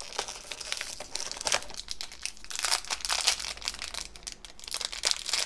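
Shiny plastic foil blind bag crinkling as it is pulled out of a cardboard box and squeezed in the hands: a dense, irregular crackle.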